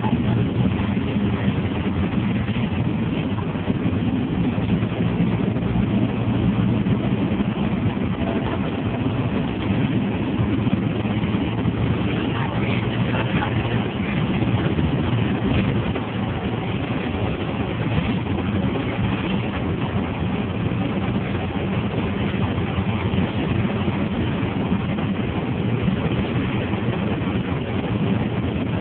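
Inside a moving city bus: the engine's steady low hum with road and cabin noise.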